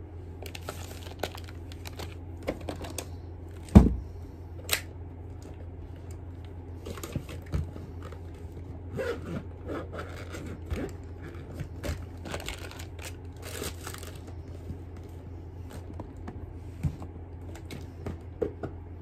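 Small items being handled and set down on a table: scattered rustling, light clicks and taps, with one sharp knock about four seconds in, over a steady low hum.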